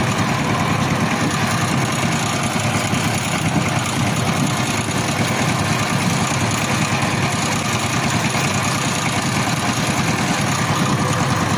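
Power tiller's single-cylinder diesel engine running steadily with a fast, even beat.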